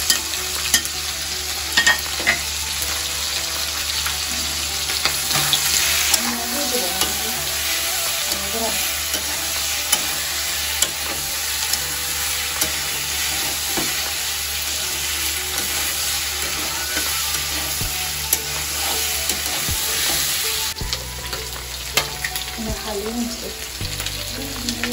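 Pieces of eel frying in oil in a kadai, sizzling steadily, while a metal spatula stirs them and scrapes and clicks against the pan.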